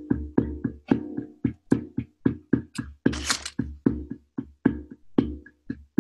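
Handpan played with bare hands in a quick, even rhythm of about three to four strikes a second, each note ringing with a low bass thump beneath, and a brighter slap about halfway through.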